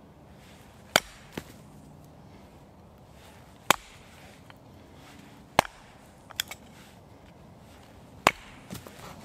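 An axe splitting small blocks of birch on a tree stump: four sharp chops about two to three seconds apart, with a couple of lighter knocks between.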